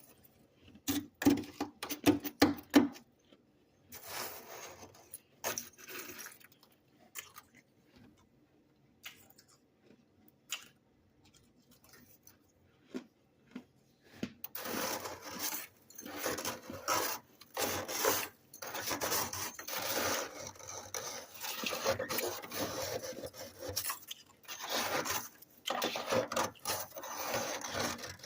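Freezer frost being scraped: a few sharp knocks at the start, scattered scrapes, then steady crunchy scraping from about halfway on.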